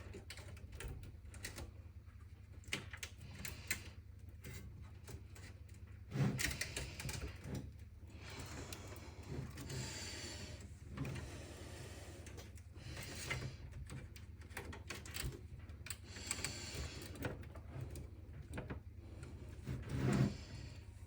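Scattered clicks, taps and rustling of hands handling computer case parts and cables, with louder knocks about six seconds in and near the end, over a low steady hum.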